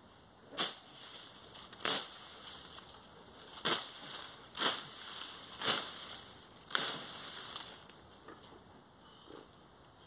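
A long-handled hoe chopping into grass, weeds and soil: six strikes with a rustling swish after each, about one a second, stopping about seven seconds in.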